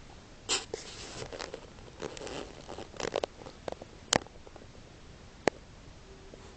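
Small dog scuffling on a sofa and its blanket: bursts of fabric rustling over the first three seconds, then a few separate sharp clicks.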